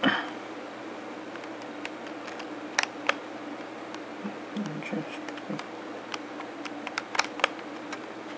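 Handling noise from a handheld camera and phone: scattered light clicks and taps over a steady faint hum and hiss, with a louder knock right at the start.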